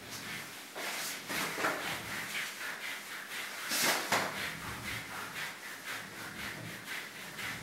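Rubber curry brushes scrubbing a weimaraner's short coat in quick repeated strokes, about two to three a second, with one stronger stroke about four seconds in. This is a dry brush-out to loosen shed hair before the bath.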